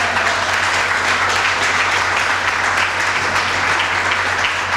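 Audience applause: many hands clapping in a sustained, even burst.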